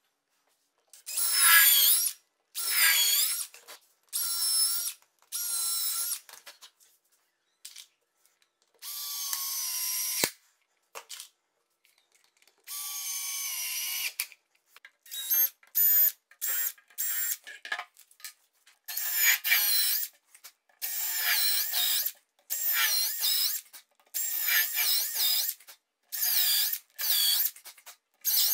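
Cordless drill-driver running in a series of short trigger bursts, driving screws into a wooden frame and drilling holes in a wooden board, its motor whine rising and falling in pitch with each burst. A single sharp click sounds about ten seconds in.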